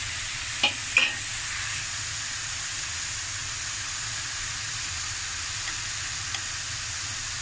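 Egg noodles, bean sprouts and sliced onion sizzling in a hot non-stick frying pan while being tossed with chopsticks: a steady frying hiss, with two sharp clicks of chopsticks against the pan about a second in and a couple of faint ones near the end.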